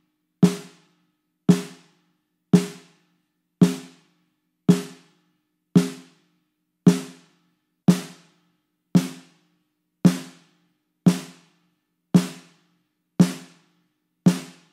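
Single snare drum strokes, about one a second, each a sharp crack with a short ring, heard through an unprocessed close mic with no EQ, compression or gating. The first strokes are miked from straight above the head and the later ones from a 45-degree angle, which picks up more of the drum's ugly undertones and mud.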